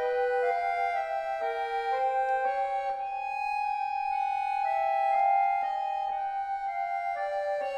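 Accordion playing contemporary classical music: one high note held throughout while a lower line moves in slow, mostly stepwise held notes. Light mallet strokes on a marimba join it now and then.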